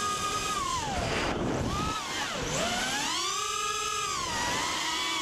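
Race quadcopter's Cobra 2204 2300kv brushless motors spinning tri-blade props, their whine rising and falling in pitch with the throttle: dropping to a rough low about a second and a half in, then climbing back to a high, held whine before easing down near the end.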